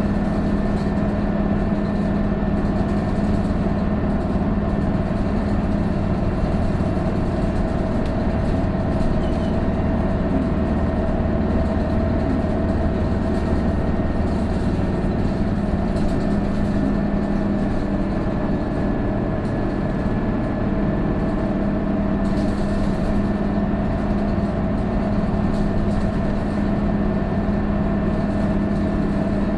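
Cabin sound of an Isuzu Erga PJ-KV234L1 city bus, its turbocharged diesel engine running steadily, with a thin, steady high whine over the engine drone. This bus is known for an abnormal whine, like that of an Aisin automatic transmission, once the turbo comes in from about 1300 rpm.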